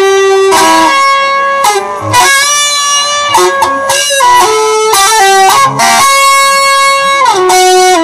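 Electric guitar playing a slow melody of long sustained notes, sliding between some of them, with one note sliding down in pitch near the end.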